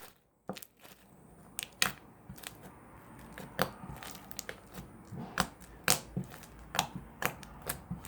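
Blue floam (slime mixed with foam beads) being squished and worked by fingers, giving a run of irregular crunchy pops and crackles.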